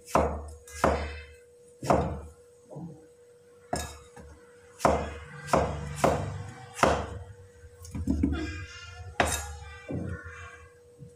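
A cleaver chopping peeled winter melon into chunks on a round wooden chopping board: about a dozen sharp knocks at irregular intervals as the blade cuts through onto the board.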